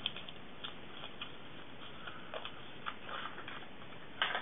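Small scattered clicks and taps of a lipstick case being handled, with a louder rustling clatter near the end.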